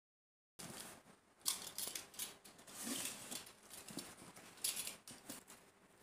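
Taped cardboard shipping box being cut open and its flaps pulled back: irregular scraping, cutting and crinkling noises starting about half a second in, with a few louder strokes.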